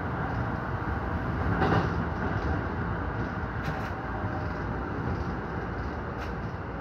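Keikyu 1000-series electric train running along the line, heard from inside the front car: a steady rumble of wheels on rails, with a louder clatter about two seconds in and a couple of sharp clicks later.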